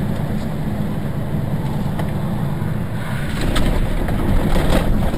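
Dashcam audio inside a vehicle's cab: the steady low rumble of the engine and tyres on a wet road. It grows louder from about three seconds in, with a few short knocks, as a car swerves across the road ahead.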